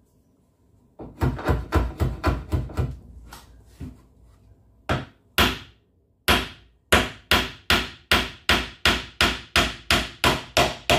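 Hammer striking small nails into wood: a quick run of light taps about a second in, two blows near the middle, then a steady series of about three sharp strikes a second.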